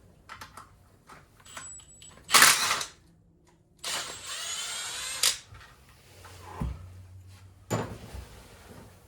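Tools at work on engine bolts: scattered clicks and clanks, a short loud burst about two and a half seconds in, and a longer steady burst lasting about a second and a half from about four seconds in.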